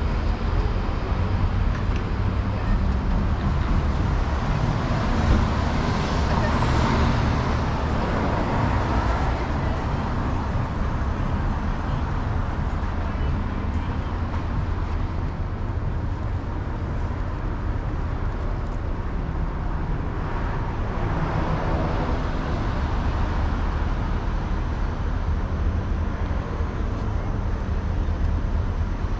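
City street traffic: a steady rumble of passing cars and buses. A high thin tone slides downward about five seconds in.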